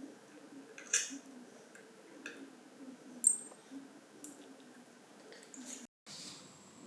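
Sparse light clicks and taps of small metal parts and tools being handled on a workbench. The sharpest tap, about three seconds in, gives a brief metallic ring. The sound cuts out for a moment near the end.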